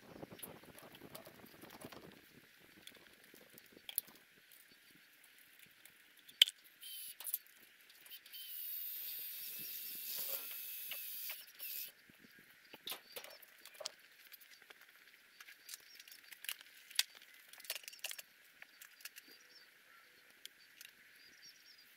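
Scattered clicks and knocks of hand work at the edge of a corrugated metal shed roof from a wooden ladder, with one sharp knock about six seconds in and a brief hiss-like rustle around ten seconds in, over a steady faint high hiss.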